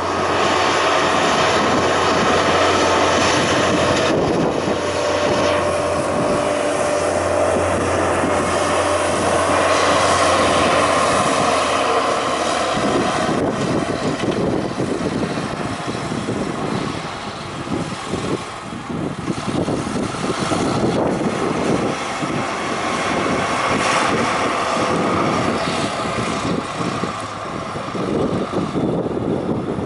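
Schlüter Super 1900 TVL-LS tractor's diesel engine running under load as it pulls a Kerner Galaxis cultivator through the soil. A steady drone holds for about the first twelve seconds, then turns rougher and less even.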